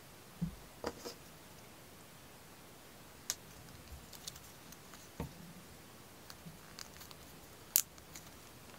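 Small plastic toy figure being handled and pressed onto its striped plastic base: scattered light clicks and taps, the loudest near the end.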